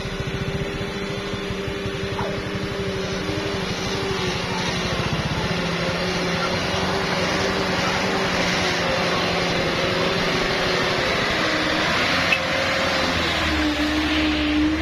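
Diesel engine of a Mitsubishi Fuso Canter dump truck running steadily as the truck crawls along the muddy track, its drone growing louder as it draws near and passes close by. There is a single knock about twelve seconds in.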